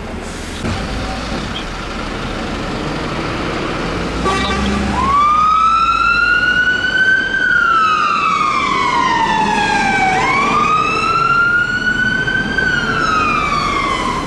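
Fire engine siren coming on about five seconds in and sounding a wail that rises and falls slowly in pitch, twice, each cycle about five seconds long. Before it and underneath it is the rumble of the truck's engine and road noise.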